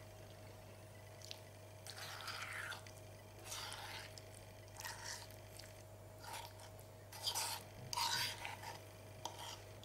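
A spoon scooping soft mashed pumpkin filling out of a pan onto a pastry base: quiet, irregular scrapes and squishes, several a few seconds apart.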